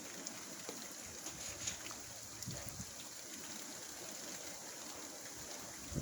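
Steady hiss of rain with scattered sharper drop ticks, and low gusts of wind swelling briefly, most clearly about two and a half seconds in.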